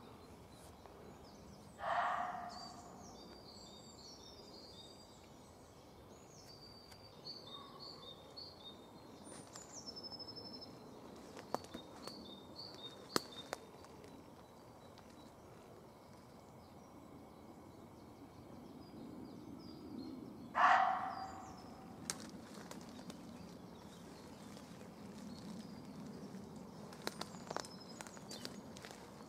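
Muntjac deer barking: two single loud, sharp barks about eighteen seconds apart, the alarm call of a buck unsettled by the person stalking it. Small birds sing faintly in the background.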